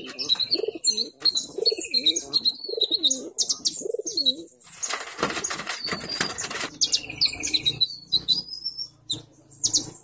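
Crimson sunbird (konin) singing in its cage: rapid, thin, high chirps and twittering phrases, with a rough rattling burst lasting about two seconds around the middle.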